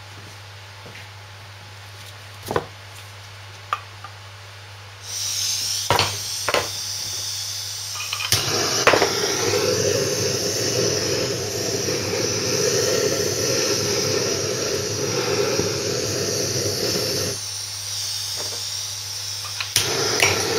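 Handheld gas blowtorch on a GoSystem canister: a few clicks, then gas hissing from about five seconds in. From about eight seconds the lit flame burns steadily as it heats a cast-iron bearing housing for a shrink fit. The flame drops away briefly near the end and comes back.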